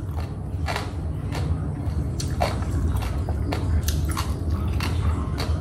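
A woman chewing a mouthful of an eggplant dish, with irregular wet mouth clicks about twice a second, over a steady low hum.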